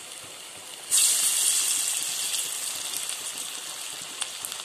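Banana-blossom vadai deep-frying in hot oil in a steel kadai. The sizzle is steady at first; about a second in, a second patty goes into the oil and the sizzle jumps suddenly loud, then slowly dies down, with a few crackling pops near the end.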